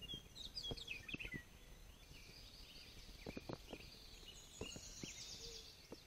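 Several songbirds singing in spring woodland: a tangle of quick, high warbling phrases, with a fast trill near the end. A few soft low knocks are scattered through it.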